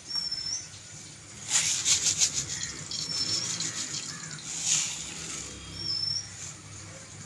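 Mustard seeds going into oil in a steel kadai, giving a brief sizzling crackle about a second and a half in and again near five seconds. A bird gives a short high whistle that rises at the end, three times.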